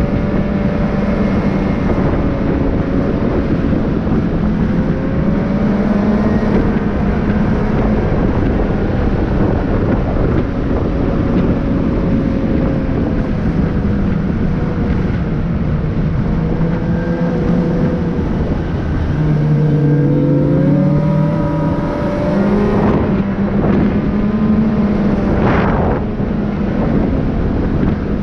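Motor vehicle driving, a steady engine and road drone whose pitch wavers slowly up and down. A brief rising-and-falling whine comes about 25 seconds in.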